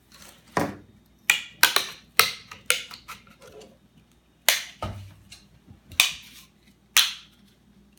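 Dry, seasoned river cane cracking as a knife is worked into the split along its length: about ten sharp snaps at irregular intervals, each dying away quickly.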